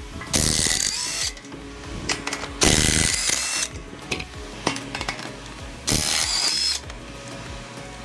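Impact wrench hammering off the hub bearing assembly's mounting nuts on a Super Duty Dana 60 steering knuckle, in three bursts of about a second each.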